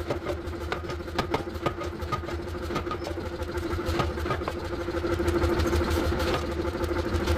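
A running machine: a steady hum over a low rumble, with irregular sharp clicks and knocks throughout.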